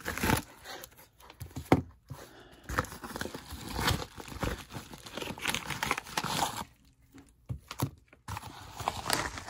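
A padded mailer envelope being handled and unpacked, its paper rustling irregularly, with stacks of plastic top-loader card holders set down on a table in a few short knocks.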